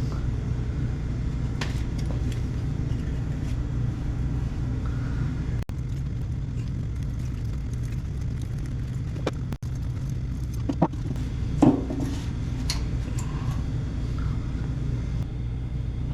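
Steady low rumble with a handful of short clicks and snips scattered through it, the clearest bunched around the middle and later part, from scissors cutting ceramic fibre blanket.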